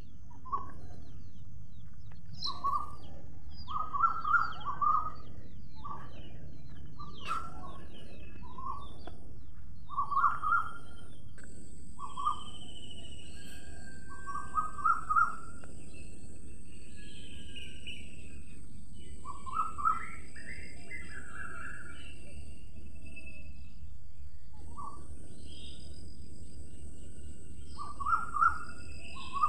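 Male house sparrow chirping: short cheeps, singly or in quick runs of two to four, repeated every second or two, over a steady low background rumble. Fainter, higher calls of other birds come in between.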